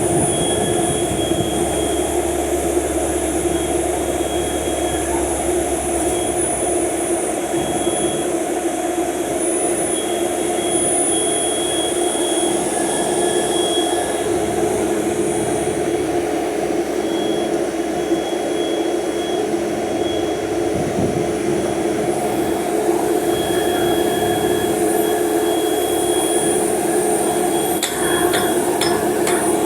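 A machine running steadily with a constant hum and whine, and a few sharp metallic knocks near the end.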